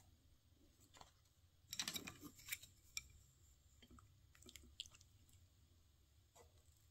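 Quiet eating sounds: a short run of crackling clicks about two seconds in, then scattered light clicks as wooden chopsticks pick food from a dish.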